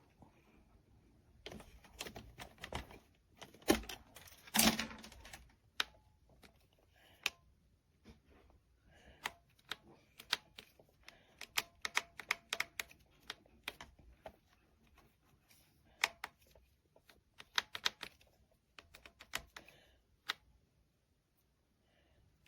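Irregular clicks and light knocks of hard plastic parts being handled, with a short louder rustle about five seconds in. No motor is running.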